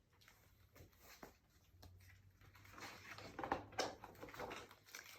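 Faint paper rustling and light handling of a picture book, a page being turned, starting about three seconds in after a near-silent first half.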